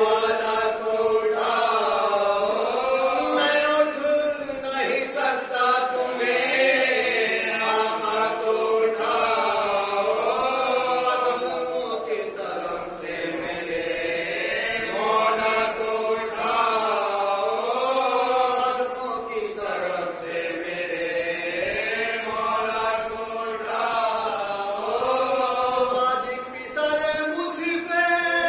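A group of men chanting an Urdu marsiya (mourning elegy) together, unaccompanied, in long drawn-out melodic lines whose pitch slowly rises and falls.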